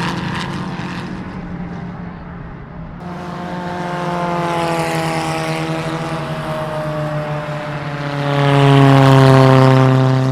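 Race car engines passing at speed. One fades away at the start, then another approaches from about three seconds in and goes past loudest near the end, its engine note falling slightly.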